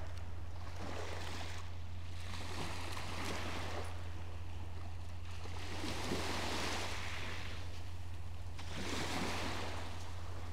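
Small sea waves washing onto a pebbly shore, the hiss swelling and fading in slow surges every two to three seconds, over a steady low hum.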